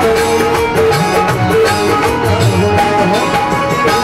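Live instrumental music from the stage band accompanying a Bhojpuri song: a melody over a steady beat.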